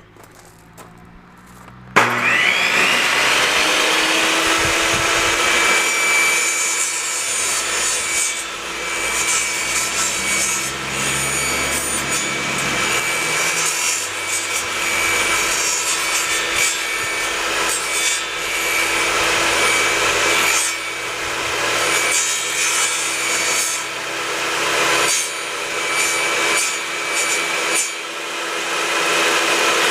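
Electric power saw starting up about two seconds in and running steadily with a constant motor whine, its blade cutting through wood to make the entrance opening in a wooden beehive bottom board.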